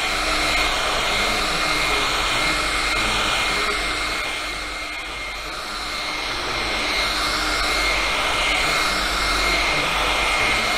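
Handheld electric polisher running steadily with its foam pad working compound over a car door's painted panel, a continuous motor whine over a rushing hiss. This is the compounding stage that takes out sanding marks and levels the paint texture. The sound eases a little about halfway through, then picks up again.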